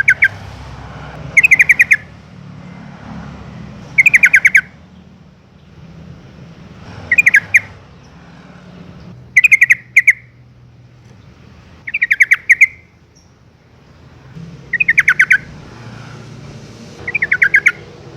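Yellow-vented bulbul calling: short phrases of rapid chattering notes, repeated about every two to three seconds, eight times.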